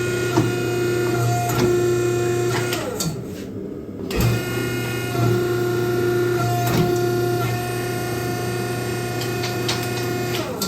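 A forging press's motor runs with a steady hum as it squashes Damascus steel offcuts flat. The hum sinks in pitch and stops about three seconds in, starts again about a second later, and sinks again right at the end.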